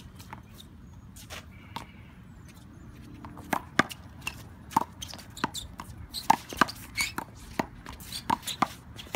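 One-wall handball rally: sharp smacks of the small rubber ball being struck by hand and bouncing off the wall and court, with sneakers scuffing. The smacks come thick and fast from about three and a half seconds in.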